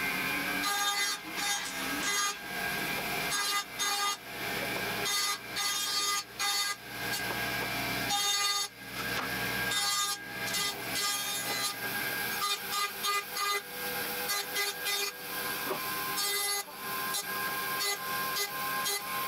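Band saw running and cutting wood, its steady whine broken by short dips in level as pieces go through the blade.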